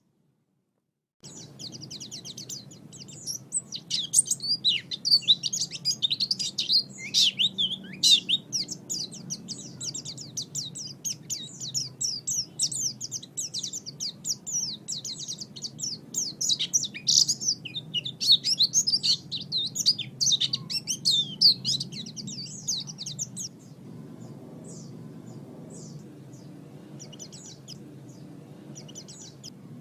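White-eye (pleci) singing: a long, rapid, high twittering warble of quick chirps that starts about a second in and thins to scattered short chirps near the end, over a faint steady low hum.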